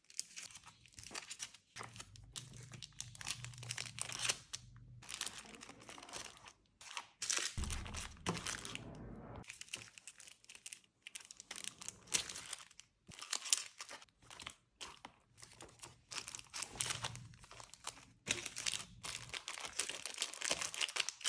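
Plastic packaging and small portions of decorative tape being handled and sorted by hand, with irregular crinkling, rustling and tearing noises.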